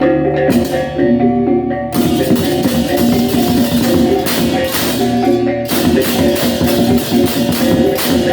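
Balinese baleganjur gamelan playing: tuned bronze gongs and kettle-gongs ring out a repeating interlocking pattern, and about two seconds in a loud wash of clashing cymbals joins in.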